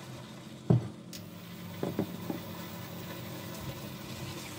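A spatula knocking against a stainless steel pot: one sharp knock about a second in, then a few lighter knocks, over a steady low hum.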